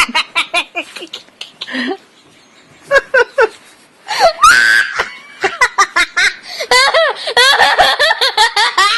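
A tween girl laughing uncontrollably while being tickled: fast bursts of high laughter, a lull of about two seconds, then a high squeal and more breathless laughter.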